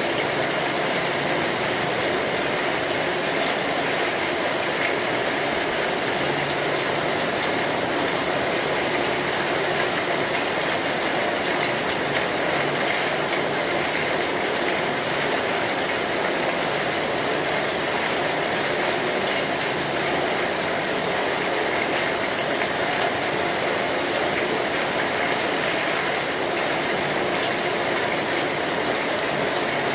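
Steady rain falling, an even, unbroken hiss of water.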